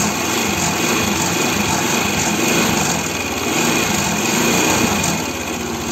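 Scooter engine running under throttle, with its idle just corrected by tightening the throttle cable and idle screw. The revs hold fairly steady, swell a little in the second half and ease off near the end.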